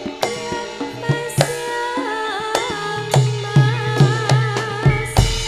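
Javanese gamelan playing: bonang kettle gongs and other bronze metallophones struck in a steady interlocking pattern, with hand-drum strokes underneath. A higher wavering melody joins about two seconds in. A deep low stroke sounds just before the end.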